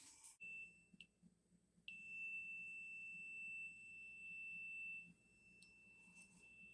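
Continuity tester beeping: a short beep just under half a second in, then a steady high tone held from about two seconds in, getting quieter after about five seconds. The tone means current is flowing through the closed ignition points of the outboard's magneto.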